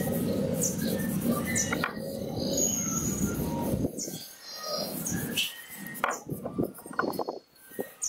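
Small birds chirping repeatedly, over a steady low rustle that stops about four seconds in.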